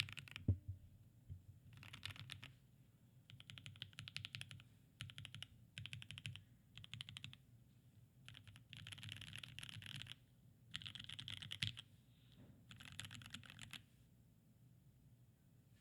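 Typing on a custom 65% mechanical keyboard: a KBDfans Tofu65 aluminium case with Alpaca linear switches lubed with Krytox 205g0 and filmed, and ABS doubleshot keycaps. The typing comes in quick runs of keystrokes with short pauses between them, with one heavier low thock about half a second in. It stops shortly before the end.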